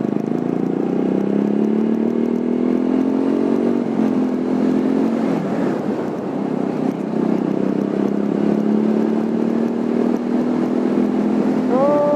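TVS Apache single-cylinder motorcycle engine running under way, a steady note that eases off briefly about four seconds in and again around the middle before pulling steadily again.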